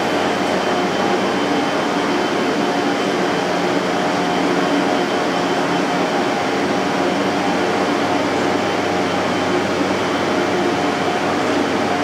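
Steady ambient noise of an airport terminal departure hall: an even hum and hiss of air handling and distant activity, with no distinct events.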